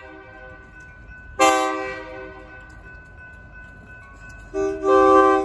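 Diesel locomotive air horn sounding for a grade crossing: one blast about a second and a half in that fades away, then a second blast near the end.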